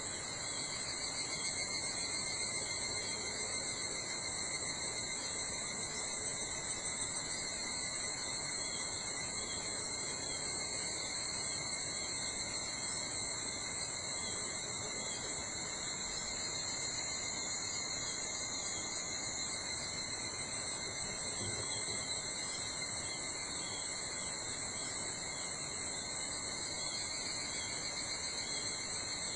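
A steady chorus of insects trilling: several unbroken high-pitched trills at different pitches overlapping, with a faint background hush.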